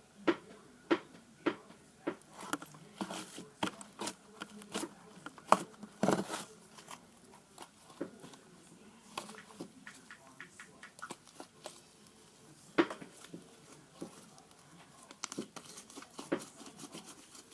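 Slime being pressed and pulled by hand, making irregular sticky clicks and pops, with a denser crackling run in the first few seconds and again near the end.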